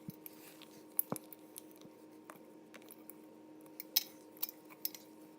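Spoon stirring thick cookie dough in a mixing bowl: a handful of soft, scattered clicks and scrapes of the spoon against the bowl.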